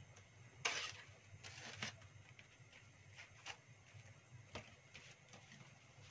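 Banana leaf rustling as it is handled for wrapping pepes: two short rustles about a second in, then a few faint taps.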